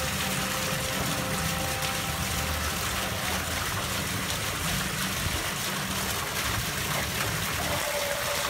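Small pond fountain spraying a jet of water that splashes steadily onto the pond surface.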